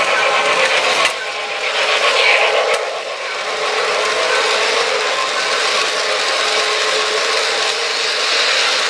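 O gauge electric model freight train running past close by: a steady mechanical clatter and rattle of the cars' wheels on three-rail track, mixed with the running gear of the locomotive.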